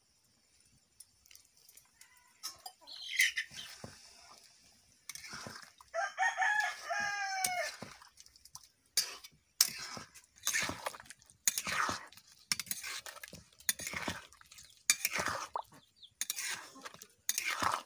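A rooster crows once, a single call of about two seconds near the middle. Around it, and louder in the second half, a metal spatula scrapes and knocks against the wok in quick strokes as chicken pieces are stirred in gravy.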